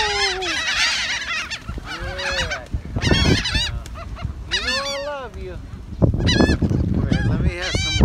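A flock of laughing gulls calling repeatedly, many short nasal cries overlapping in bursts, as they crowd in for food tossed into the air.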